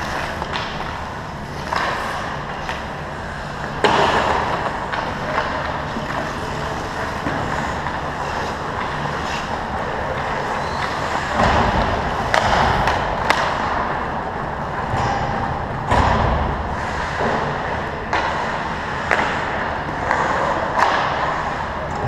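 Ice hockey play: skate blades scraping and carving the ice with a steady hiss, broken by sharp clacks and knocks of sticks and puck. Several heavier thuds stand out about 12 and 16 seconds in.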